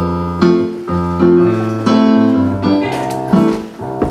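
Keyboard accompaniment playing an instrumental passage of a song: sustained chords struck about every half second over a stepping bass line.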